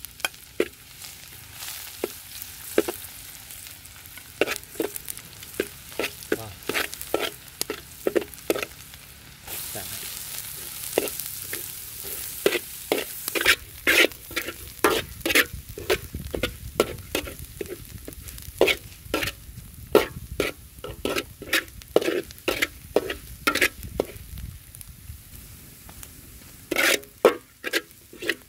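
Minced garlic, lemongrass and chili sizzling in oil in a steel wok as they are stir-fried, with a metal spatula scraping and tapping against the pan over and over. The sizzle grows louder about a third of the way in.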